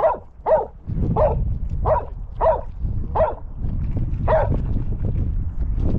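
A dog barking repeatedly: about seven barks spaced half a second to a second apart, stopping about four and a half seconds in.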